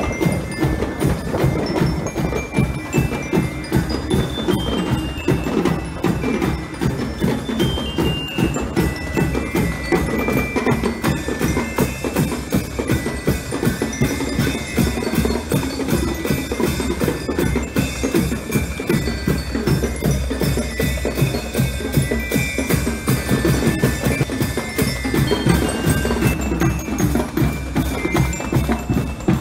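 Marching band playing in the street: steady, dense drumming with bell lyres ringing out a stepping melody over it.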